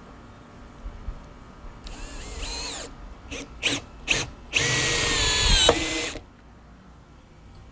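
Power drill driving Cortex screws through the PVC pedestal into the blocking. About two seconds in comes a short spin-up, then a few quick trigger blips, then a longer run of about a second and a half whose pitch drops near the end as the screw seats.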